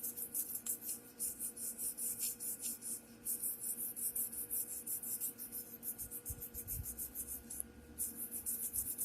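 Small brush scrubbing a part of a rusty antique sewing machine in quick back-and-forth strokes, about five or six a second, with two short pauses.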